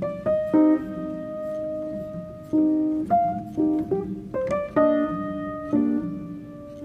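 Instrumental background music: a melody of held notes over chords that return every half second to a second.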